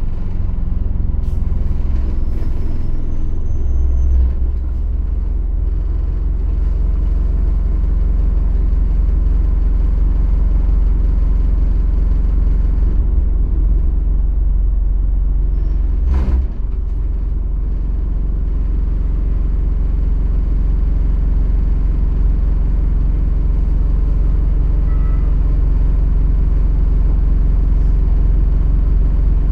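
ADL Enviro400 double-decker bus's diesel engine running steadily under way, heard from on board as a loud low rumble. A single short, sharp sound cuts in about halfway through.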